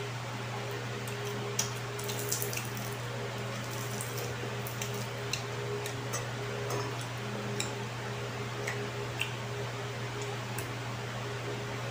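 Wet mouth sounds of someone eating fried fish with the fingers: chewing and lip smacks with scattered small clicks, over a steady low hum.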